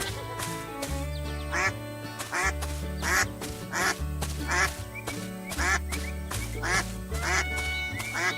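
Cartoon background music with a repeating bass line, over which a duck quacks over and over, about twice a second.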